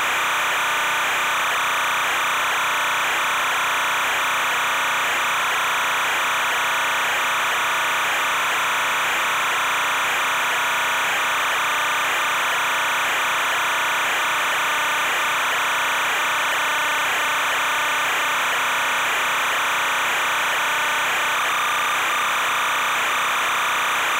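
Steady, unchanging hiss of noise, strongest in the middle and upper range, with a faint steady tone running through it.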